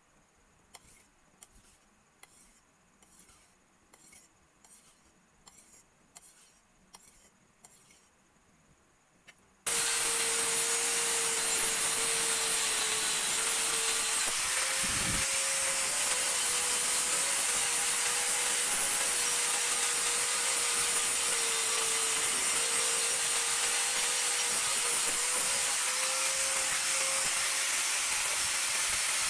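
Slow, regular rasping strokes of hand filing on a blade, about one a second, then a power tool cuts in suddenly and runs steadily with a wavering hum for the rest of the time, grinding or sanding the knife.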